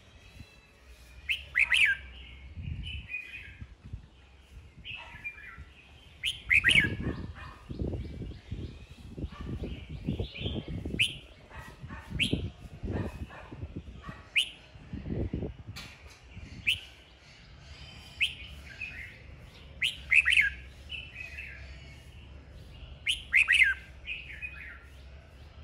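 Red-whiskered bulbul singing its fighting song: short, loud, sharp phrases repeated every couple of seconds, with quieter twittering between them. A low rumbling noise runs underneath through the middle stretch.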